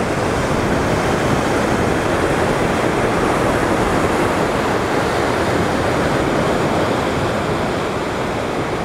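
Ocean surf washing against the rocks: a steady rushing noise with no breaks.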